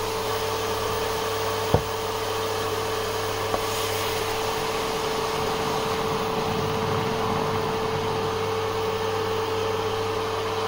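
Induction cooktop running, its cooling fan giving a steady whirring hum with a constant mid-pitched tone; one sharp knock about two seconds in.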